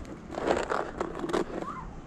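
Snow shovel scraping and crunching into packed snow in several short, quick strokes.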